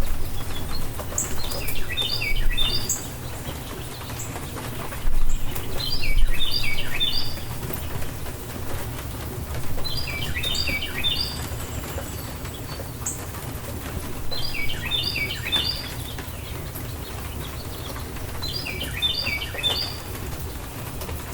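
Steady rain ambience with a low rumble underneath. A bird repeats the same short song, a quick run of high descending notes, about every four seconds. There are louder low bumps around the first few seconds.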